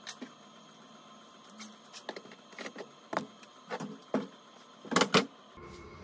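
Clicks and knocks of a cordless drill being handled at a workbench. Two loud knocks come close together about five seconds in as the drill is set down on the bench.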